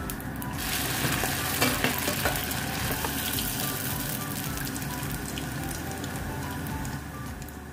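Dried cooked rice sizzling in hot oil as it puffs up, the sizzle rising about a second in with a few sharp crackles soon after. Background music plays underneath.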